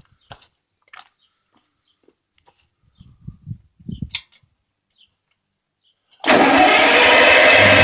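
A few faint clicks and knocks while the controls are handled. Then, about six seconds in, the Buda six-cylinder engine of a Bucyrus Erie 24L drilling rig suddenly starts, loud, and settles into a steady run near the end.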